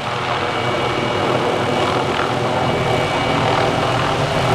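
Hughes 500D helicopter running close by: a steady, fast-beating rotor sound with a thin, steady high whine over it.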